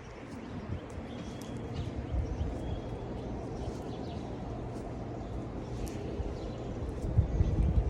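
Outdoor ambience: a steady low rumble, like wind on the microphone, with faint short bird chirps above it. A louder low rumble comes near the end.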